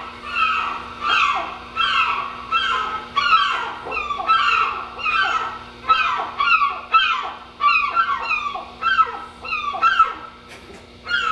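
Recorded gulls crying, played as ship's-deck ambience through the exhibit's speakers: a quick, even series of calls that fall in pitch, about one and a half a second, with a short break near the end.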